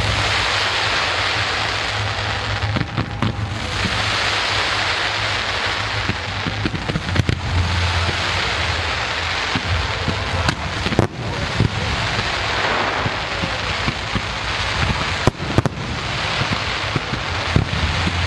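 Aerial fireworks display: a continuous, dense crackle of many small bursts, with sharp louder bangs scattered through, several of them close together around the middle and near the end.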